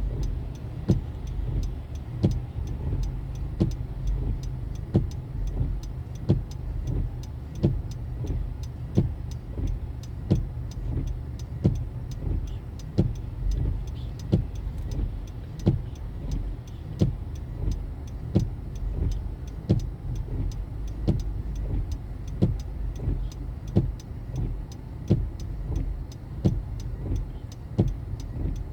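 Car driving on city streets: a steady low engine and road rumble, with a sharp tick repeating about once a second throughout.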